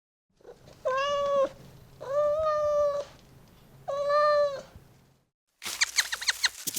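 Domestic cat meowing three times, each meow drawn out and held at a fairly steady pitch. Near the end comes a different sound: a rapid run of short, high chirps.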